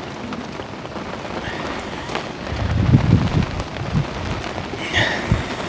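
Steady rain pattering on a fishing umbrella overhead, with a few low rumbles about halfway through.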